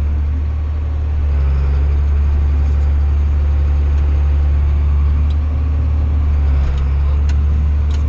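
John Deere 7800 tractor's six-cylinder diesel engine running steadily under load, a low, even drone heard from inside the cab.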